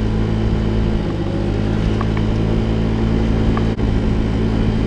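Honda Ruckus scooter's 49cc single-cylinder four-stroke engine running steadily while riding at street speed, its note shifting slightly about a second in.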